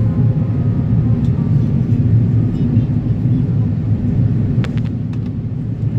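Steady low rumble of an Airbus A330-300 cabin in descent, the Rolls-Royce Trent 772B engines and airflow heard from inside the cabin. A few faint clicks come about four and a half seconds in.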